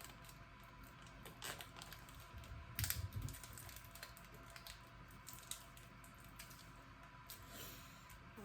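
Cellophane tape being wrapped around a steering cylinder shaft: faint, scattered crinkles and small clicks, with a louder cluster about three seconds in.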